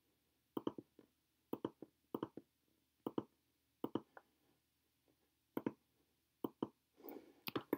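Computer mouse clicking while working in CAD software: a series of sharp clicks, mostly in quick pairs, about one a second.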